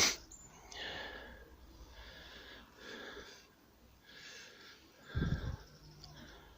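A person breathing close to the microphone in soft, repeated swells, with a low thump about five seconds in.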